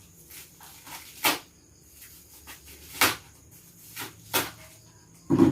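A small parcel being handled and opened by hand: a few sharp knocks and scrapes of packaging, three of them louder, about a second, three seconds and four and a half seconds in.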